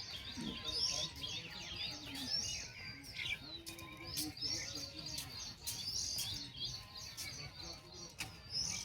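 Small birds chirping: short, high calls with quick falling sweeps, repeated about once a second.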